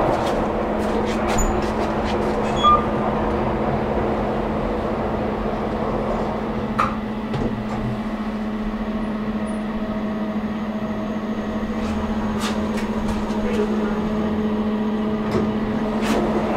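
KONE elevator running: a steady electric hum that sets in near the start, with a few faint clicks over it.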